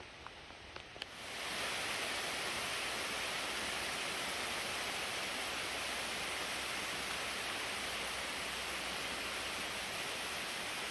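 Heavy rain falling steadily, a dense even hiss that sets in about a second in, after a few scattered raindrop ticks.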